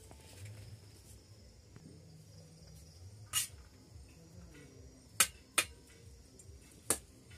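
Four sharp clinks of a metal serving spoon against steel plates and a rice pot as cooked rice is served, spread over a few seconds above a low background murmur.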